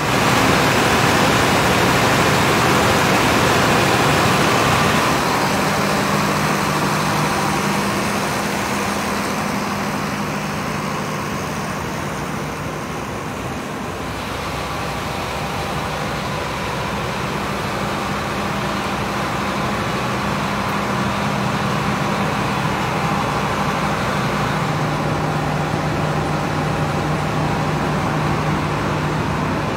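Lippmann 3048J-W portable jaw crusher plant being test-run: a loud, steady mechanical noise. It is louder and brighter for the first five seconds, then a steady low hum sets in and holds.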